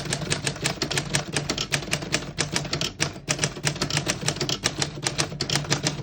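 1936 Corona Standard manual portable typewriter being typed on: a quick, steady run of key strikes, several a second, with the typebars striking cleanly and none skipping or sticking.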